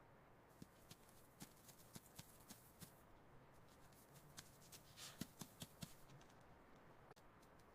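Near silence broken by faint, scattered clicks and scratches, with a small cluster of them about five seconds in.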